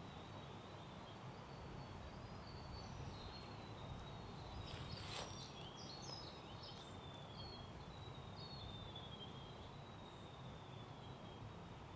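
Quiet bush ambience: a thin, steady high-pitched whine throughout, with a few faint bird chirps and a soft click about five seconds in.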